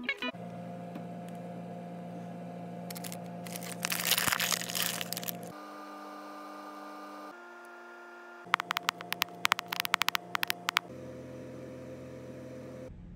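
A steady hum runs under a burst of crackling about four seconds in and a quick run of sharp, irregular plastic clicks later on, like a brittle plastic cake container crinkling loudly as it is handled.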